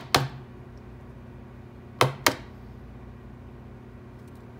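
Sharp clicks of a rigid plastic card holder being handled and snapped shut around a trading card: one click near the start, then two more about two seconds in, a quarter second apart. A steady low hum runs underneath.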